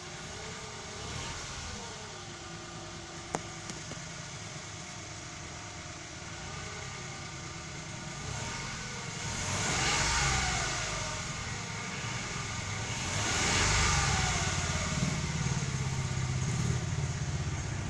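Mitsubishi Mirage G4's engine running, its idle wavering up and down, then revved twice, about ten and fourteen seconds in, the pitch rising and falling each time. It is a car that is hard to start and needs the gas pedal pressed to start.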